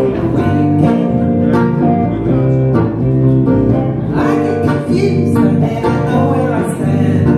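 Live blues band playing: electric bass and guitars, with singing.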